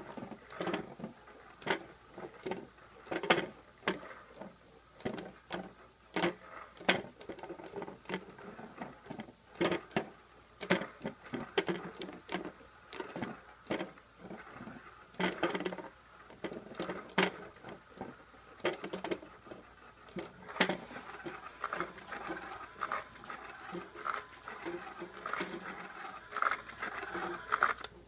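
A cat pawing at a ball inside a hard plastic dome toy: irregular taps and knocks, one or two a second, as the ball is batted round its track. About three-quarters of the way in the sound changes to a denser, steady rustling and scratching of a fabric cat toy being pounced on.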